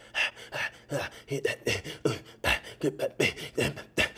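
A person beatboxing: quick mouth-made percussive hits, about four or five a second, mixed with short sliding vocal bass notes.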